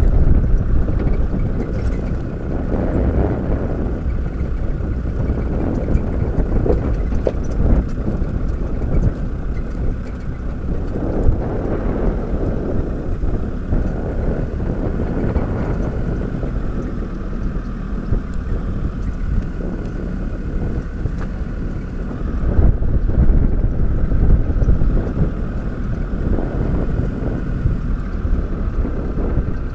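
Open-sided safari vehicle driving over grassland: a steady low rumble from engine and chassis, with wind buffeting the microphone.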